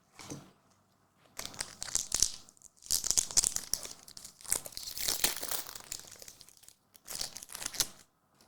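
A trading-card pack wrapper being torn open and crinkled, in three bursts of crackly rustling, the middle one the longest.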